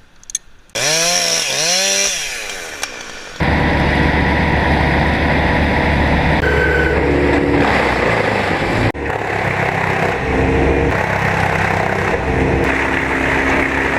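Chainsaw revved twice, then cutting steadily into the trunk of a large poplar from about three seconds in, with a brief break near the middle.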